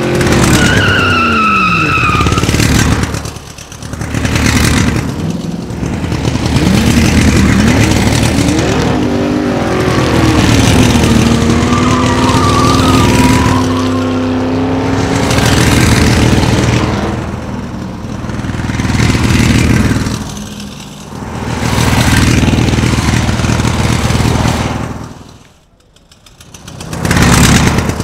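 Racing car engines revving hard and sweeping past in waves, the sound rising and falling as each pass comes and goes, with a few brief tyre squeals.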